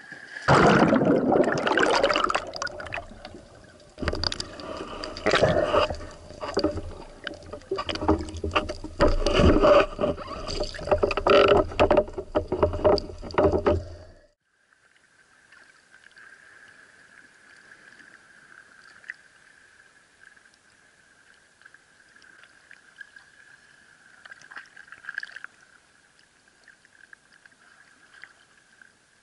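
Loud, irregular water splashing and sloshing as a spearfisher in a wetsuit enters the sea from a breakwater and moves through the water. About halfway through, the sound cuts suddenly to a quiet, muffled underwater hush with a faint steady high hum and a few small clicks.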